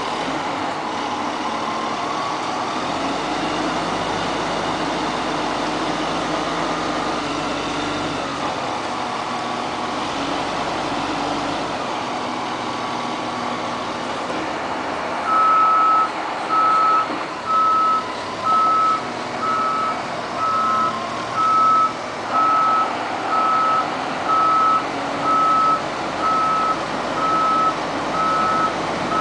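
Heavy boatyard machinery's engine running steadily. About halfway through, a reversing alarm starts beeping about once a second as a vehicle backs up.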